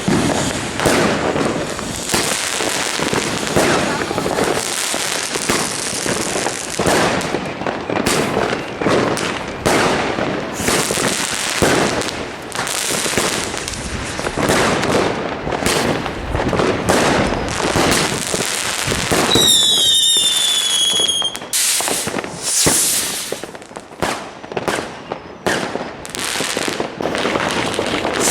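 Fireworks going off continuously in dense crackling and bangs. About 19 seconds in, one whistling firework gives a falling whistle lasting about two seconds.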